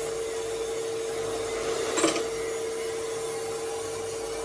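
Steady machine hum with one even tone, and a single short knock about two seconds in.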